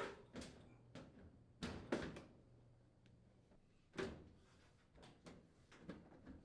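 Sheet-metal front panel of a washer-dryer laundry center knocking against the cabinet as it is fitted onto the frame's mounting pins: a string of light thuds and taps, a few louder ones near the start, around two seconds in and around four seconds in.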